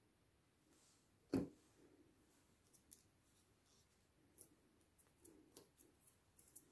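Faint paper-crafting handling sounds: one sharp knock about a second and a half in, then scattered light clicks and paper rustles as small die-cut paper leaves are pressed onto a card.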